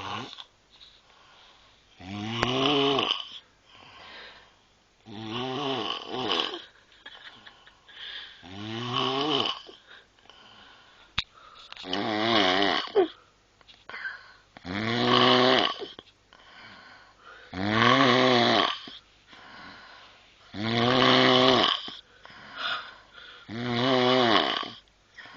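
A young woman snoring loudly in deep sleep: eight long snores about every three seconds, each a buzzing, wavering drone, with quieter breaths between them.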